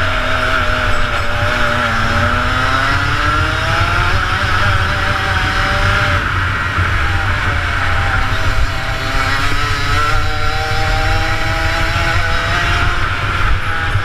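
Rotax Max 125cc two-stroke kart engine heard from onboard at racing speed. Its pitch falls as the kart slows for corners and climbs again as it accelerates out, several times over.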